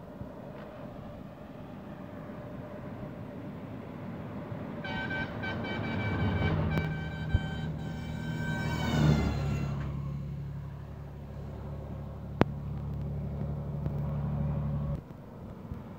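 An approaching truck sounds its multi-tone air horn for about four seconds, the horn's pitch dropping as the truck passes, over the low rumble of its diesel engine and tyres. The rumble cuts off suddenly near the end.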